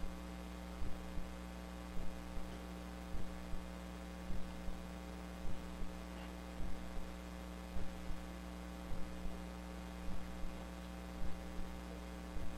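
Steady electrical mains hum, with a faint pair of short low thumps repeating about once a second.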